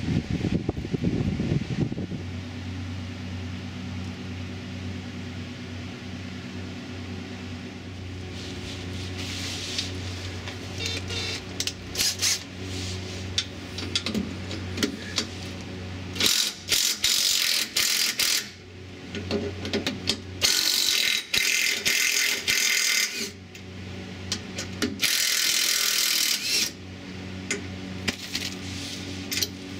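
A cordless power tool running in three bursts of two to three seconds each, near the middle and towards the end, driving the mounting bolts of a rear sway bar. A steady low hum runs underneath.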